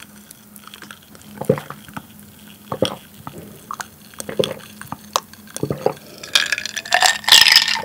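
A person gulping a milky drink from a glass, one swallow about every second and a half. Near the end comes a louder, breathy noise.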